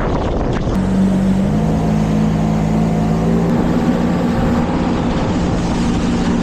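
Jet ski engine running under way, its note stepping up a little about a second in and again a second later, over a steady rushing noise.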